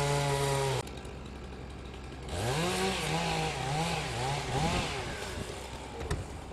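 Chainsaw running at full throttle, then dropping suddenly to idle about a second in. From about two seconds in it is revved up and down several times in quick blips before settling back near the end.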